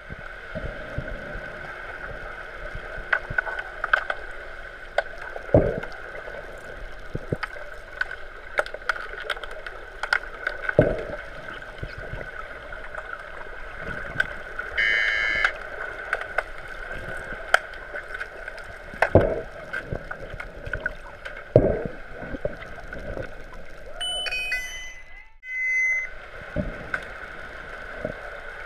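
Underwater hockey play heard underwater in a pool: a steady hum with scattered sharp clicks and knocks from the play on the bottom, and a short high tone about halfway through.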